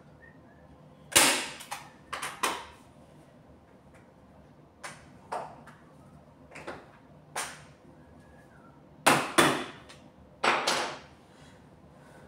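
Hand staple gun firing staples through upholstery fabric into the bed base: about a dozen sharp snaps at irregular intervals, several coming in quick pairs or threes.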